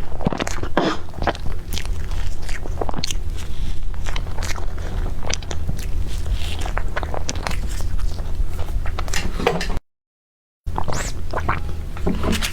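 A person eating close to the microphone: bites and chewing with many small clicks and crackles over a steady low hum. The sound cuts out to total silence for about a second near the end.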